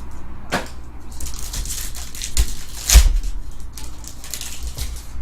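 Trading-card box and packaging being handled and opened: irregular rustling and scraping, with a sharp knock about three seconds in.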